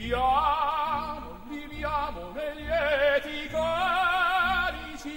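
Background music: an operatic voice sings long held notes with wide vibrato over orchestral accompaniment.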